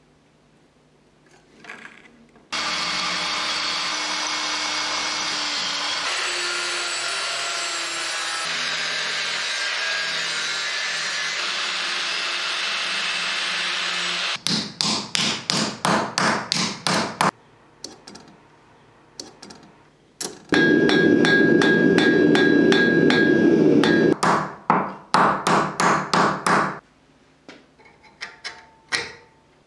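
An angle grinder cutting thin steel plate for about twelve seconds, its pitch wavering under load, followed by a quick series of hammer blows on sheet steel at about four a second. Another power tool run of a few seconds, then a second burst of rapid hammer blows.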